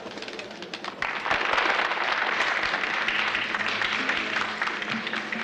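A crowd applauding. The applause starts suddenly about a second in and slowly fades, with music coming in beneath it near the end.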